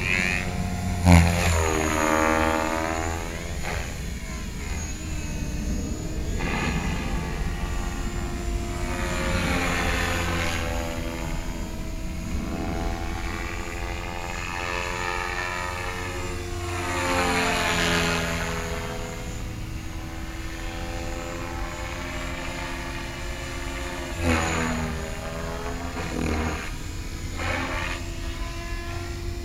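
Align T-Rex 550 RC helicopter flying 3D aerobatics, its rotor blades and drivetrain whining, with the pitch sweeping up and down again and again as it swoops past and changes collective. The loudest pass comes about a second in.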